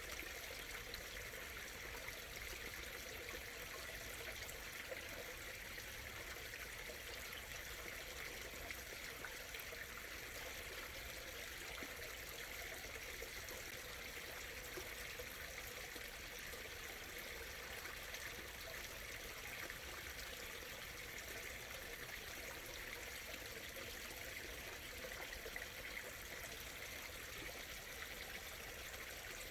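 Small stream murmuring and trickling steadily, with a brighter, babbling edge to the water noise.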